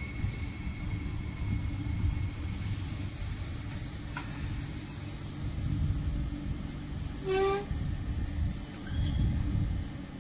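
Double-deck TER electric train running slowly and braking to a stop: a steady low rumble, with high-pitched brake squeal from about three seconds in and again near the end. A brief tonal toot sounds about seven seconds in.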